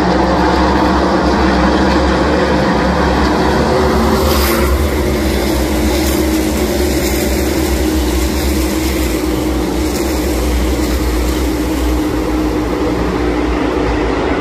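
NASCAR Cup Series stock cars' V8 engines racing around the track at speed: a loud, steady, continuous engine noise from the field.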